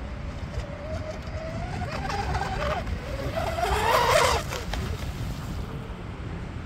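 High-pitched whine of an RC speedboat's twin brushless motors (Rocket 3670 1850kV) running at speed with surface props. The whine rises to its loudest as the boat passes close about four seconds in, then falls away as it heads off.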